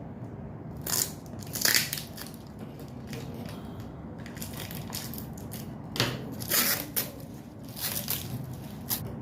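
Short bursts of crunching and crinkling, about one and two seconds in and several more from about six seconds in, as the crumbled homemade cookies and their packaging are handled.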